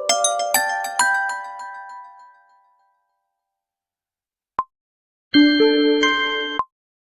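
Poco X3 phone ringtone: bright struck mallet-like notes in a glockenspiel or marimba style, ringing out and fading away over the first two and a half seconds. After a pause and a short tick, a held chord sounds for about a second, shifting once partway through, and ends with another tick.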